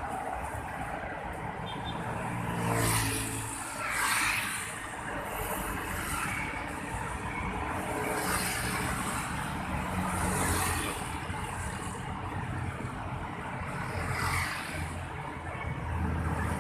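Busy road traffic: cars and motorcycles driving past, a steady hum with about five louder swells as single vehicles go by.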